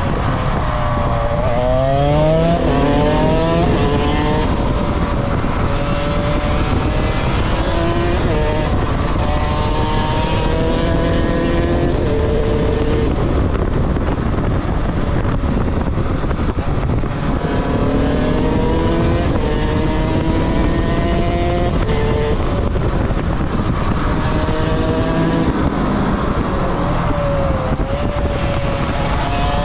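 Motorcycle engine accelerating hard again and again, its pitch climbing through each gear and dropping back at each shift, over a steady rush of wind and road noise.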